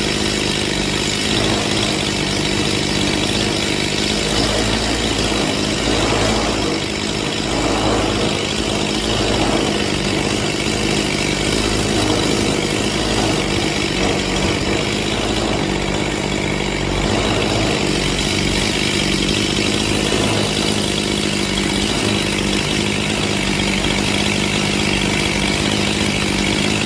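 Stihl MS181C chainsaw's small two-stroke engine idling steadily at about 2,800 RPM after a carburettor tune-up.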